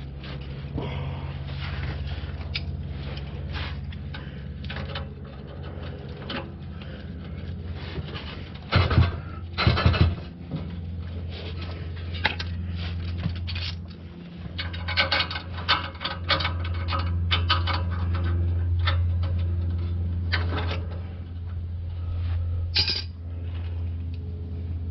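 Metal parts and hand tools clinking and rattling as an exhaust pipe joint is worked on by hand under a car, over a steady low hum. Two louder clatters come about nine and ten seconds in, and a quick run of clicks follows a few seconds later.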